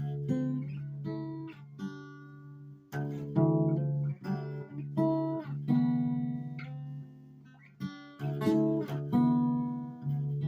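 Acoustic guitar being played: picked notes and strummed chords that ring out, with louder chords near the start, about three seconds in and about eight seconds in.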